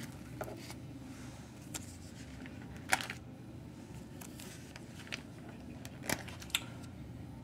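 Plastic sheet protectors in a document binder crinkling and clicking as they are handled and a page is turned: a few scattered light clicks over a low steady hum, the sharpest about three seconds in.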